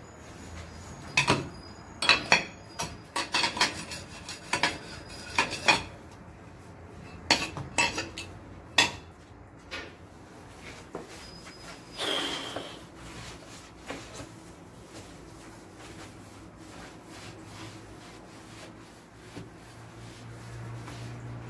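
Hard objects clinking and knocking together in a quick irregular run of sharp clicks, followed about twelve seconds in by a short rasping scrape and a few faint knocks.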